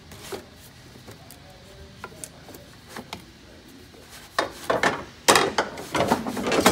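Hands loosening and working the clear plastic cover and collar ring of a Davco fuel filter housing: faint scattered clicks, then from about four seconds in repeated loud rubbing and scraping of plastic.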